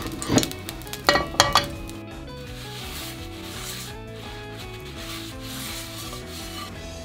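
A folded paper towel, held in chopsticks, is rubbed round a non-stick frying pan to wipe out the leftover oil; it makes a steady scrubbing swish. A few knocks in the first second and a half come as the pan is set onto the gas burner grate, and soft background music runs underneath.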